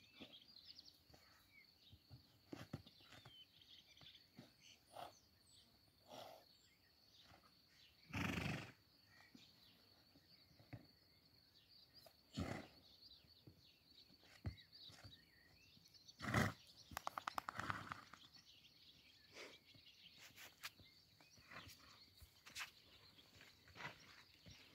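Horse rolling in sand: soft scattered scrapes and thuds of its body on the ground, broken by a few short loud snorts, the loudest about 8 and 16 seconds in, and a brief pulsing call about 17 seconds in. Hoofbeats pick up near the end as the horse moves off.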